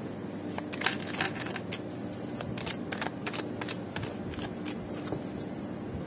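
A deck of oracle cards being shuffled by hand: a run of irregular quick card flicks and slaps, thinning out near the end.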